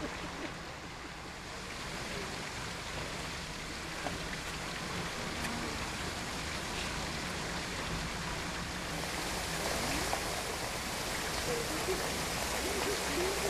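A steady rush of water, like rain or water streaming past, growing louder and brighter about nine seconds in.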